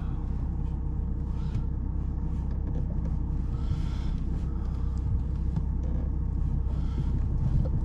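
Steady low rumble of a vehicle engine heard from inside a car cabin, with a faint steady hum above it.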